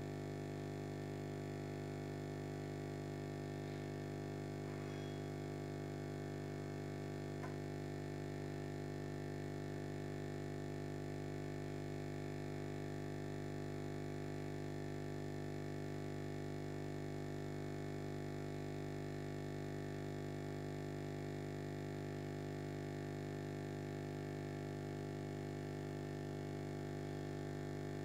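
Steady low electric hum of an aquarium air pump running, with no change in level.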